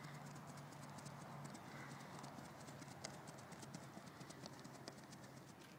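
Faint, quick footsteps of an agility-ladder drill on grass: a fast, uneven run of light taps, over a low steady hum.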